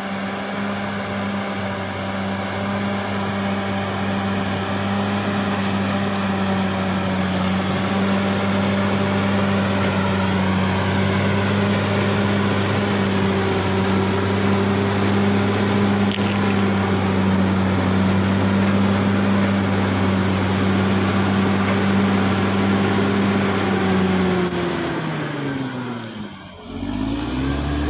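CAT D6R XL bulldozer's diesel engine running steadily. Near the end its pitch drops sharply, then comes back up.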